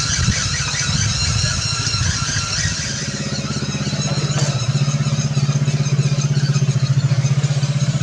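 A steady low drone with a fast, even throb, getting stronger and clearer about three seconds in, like a small engine running.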